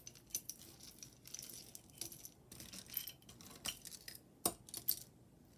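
Small metal earrings and jewelry pieces clicking and clinking against each other and the table as they are handled and set down, with two sharper clinks near the end.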